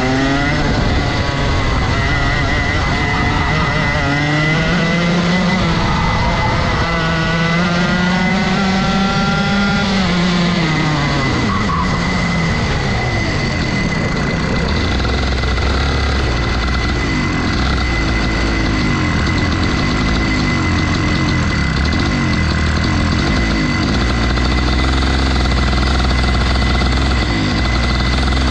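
Rotax 125 two-stroke kart engine revving up and falling back for about the first ten seconds, then settling to a steady idle.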